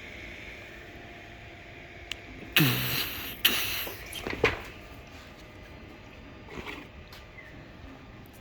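Steady whir of 3D printers running, broken about two and a half seconds in by loud handling noises: a scrape with a falling pitch, a second scrape, then a couple of sharp knocks, with a fainter rustle later.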